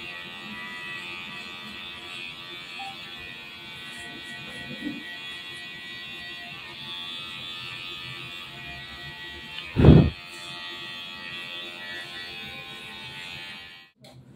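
Electric hair clipper running with a steady buzz while cutting the hair close at its zero setting for a skin fade. A single loud thump about ten seconds in, and the buzz cuts off just before the end.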